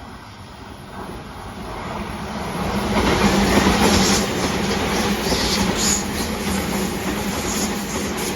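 TOMIX N gauge Tobu 100 series Spacia model train running along the track. It grows steadily louder as it nears, is loudest about three to four seconds in, then stays loud.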